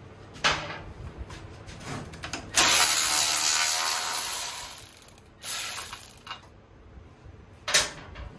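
A power tool run in two bursts, a long one of about two and a half seconds that fades off, then a shorter one, taking off the nuts of the carriage bolts that hold the mower deck's lower half. Sharp metal clicks and a knock from handling the tool and parts come before and after.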